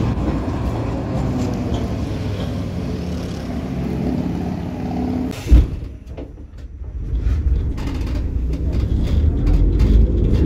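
An FVV CSM articulated tram running, first as it passes close by, then, after a short loud thump about five and a half seconds in, heard from its rear as it rolls along the track. Its low rumble grows louder toward the end.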